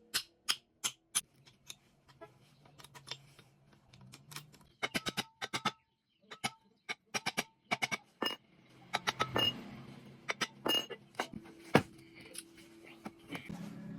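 A series of sharp metallic taps and clinks, irregular and sometimes in quick runs, several ringing briefly, with one heavier knock near the end: hand tools and metal parts being handled.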